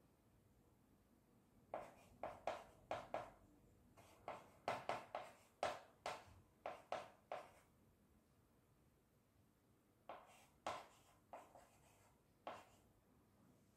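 Chalk writing on a small blackboard: faint, short scratching strokes and taps in bursts. A few come about two seconds in, a denser run follows around four to seven seconds, then a pause, and a few more strokes come after ten seconds.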